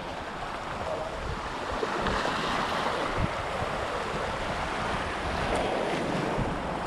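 Sea waves washing over a rocky shoreline, with wind rumbling on the microphone; it grows a little louder about two seconds in.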